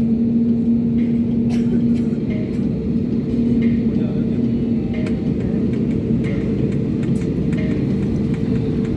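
Airliner jet engines heard from inside the cabin while taxiing: a steady hum with a held drone over a rumbling background, neither rising nor falling.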